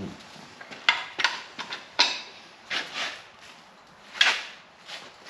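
A handful of sharp, irregular clanks and knocks, like metal tools being picked up and set down.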